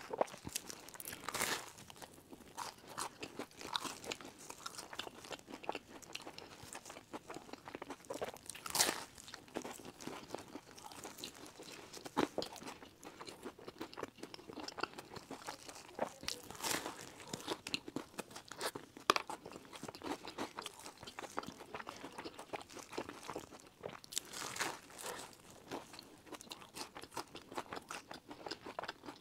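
Bites into and chewing of sesame-crusted buns topped with a round biscuit: a loud crisp crunch about every eight seconds, with steady softer crunching of chewing between.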